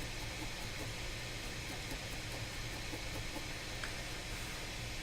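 Steady, even hiss with a low hum underneath and no distinct events, like a running fan or bench equipment.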